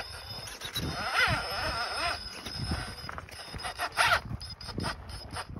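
Radio-controlled scale crawler truck's electric motor and gears whining, rising and falling in pitch with the throttle, as it works over loose gravel, with a few short sharp crunches or clicks around four to five seconds in.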